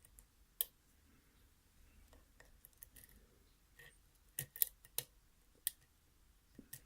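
Scattered sharp metallic clicks and taps from handling a picked Lockwood Kik lock cylinder and its tools, a cluster of them about two-thirds of the way in.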